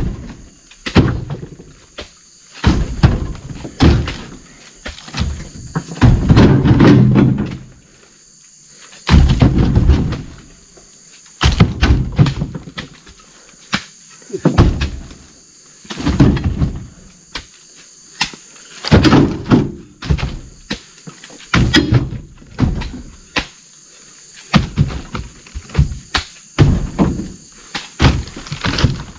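Heavy oil palm fresh fruit bunches being loaded one after another onto a vehicle: a long run of irregular dull thumps, about one a second, some longer and scraping. Insects drone steadily and high in the background.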